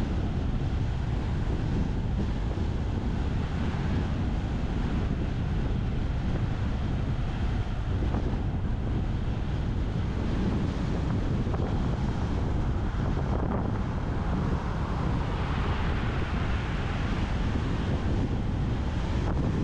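Wind buffeting the microphone of a camera on a bicycle speeding downhill: a steady rush of wind noise, heaviest in the bass.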